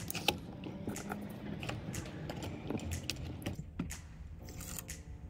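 Irregular light clicks and taps of plastic and circuit board as a Batrium Watchmon Plus board is handled and pressed into its green plastic DIN-rail mount.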